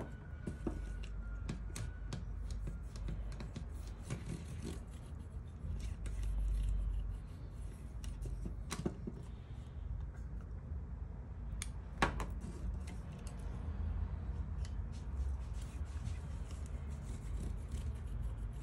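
Fingertips rubbing silicone grease along a laser printer's fuser assembly: soft scraping and rubbing with scattered small clicks as the plastic and metal parts are handled, and one sharper click about twelve seconds in.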